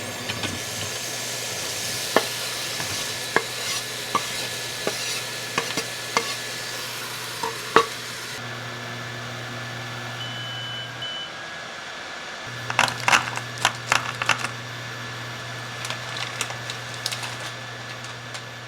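Food sizzling in a pan on an induction cooktop, over a steady low hum, with a utensil clicking and scraping against the pan, most busily about two thirds of the way through.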